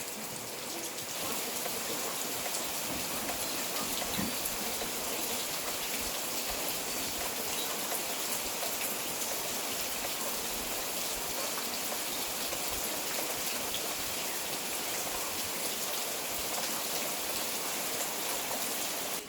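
Steady rain falling on a surface: a dense, even hiss flecked with many small drop ticks.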